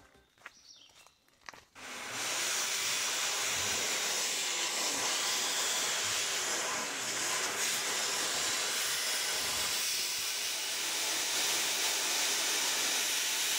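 Xlerator high-speed electric hand dryer blowing a steady, loud hiss of air onto wet socks and then a shoe held under it, switching on about two seconds in.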